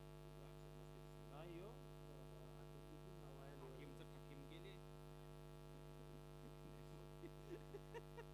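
Near silence: a steady electrical mains hum in the audio line, with a few faint sliding sounds about a second and a half in and faint short pulses near the end.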